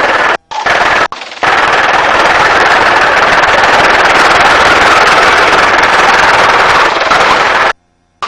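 Helicopter rotor and engine noise during the landing approach, loud and steady. It is cut short several times in the first second and a half and stops abruptly near the end.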